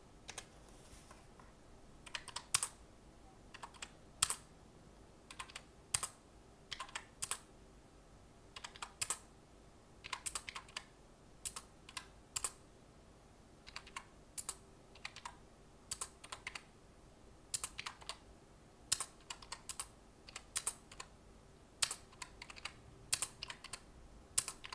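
Calculator keys being pressed one by one in irregular runs of clicks, adding up a column of budget figures.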